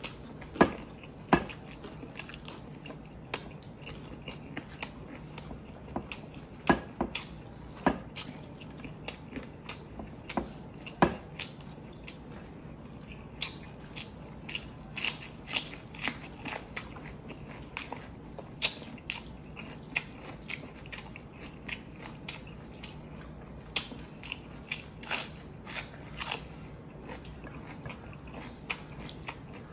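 Mouth sounds of eating: chewing with wet smacks and crunching of raw cucumber sticks, heard as irregular sharp clicks several times a second. A faint steady low hum runs underneath.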